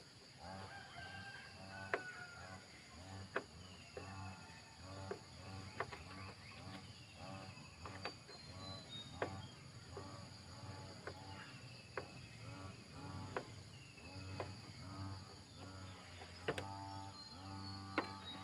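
Short animal calls repeating throughout, over a low steady hum, with a sharp click every second or two.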